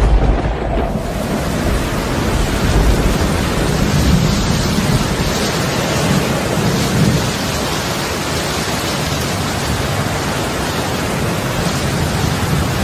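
Thunderstorm: steady heavy rain with rolling thunder. A deep rumble is loudest at the very start, and further rumbles swell now and then.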